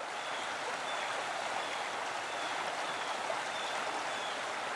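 Steady rushing noise like running water, with faint short high chirps repeating about every second.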